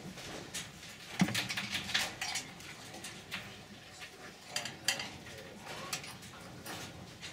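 Irregular metallic clinks and rattles from a wire-mesh cage and a metal bowl as a caged fox paws at the wire and mouths the bowl. The loudest clatter comes about a second in, with another burst of rattling around five seconds in.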